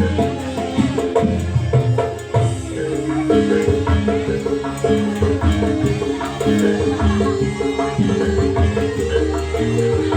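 Live gamelan music for a jaranan trance dance: metal mallet instruments play a repeating melody over steady hand-drum (kendang) beats.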